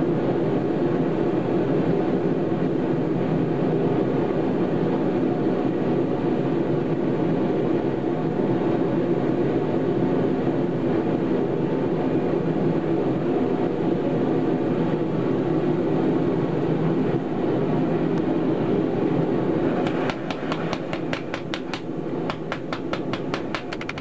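Forge running steadily. About four seconds from the end, a fast run of hammer blows starts on the hot steel-cable billet, forge-welding the strands together.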